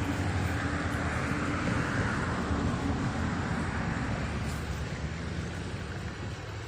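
Steady low rumble of a motor vehicle engine that fades slowly toward the end, over a haze of rushing water.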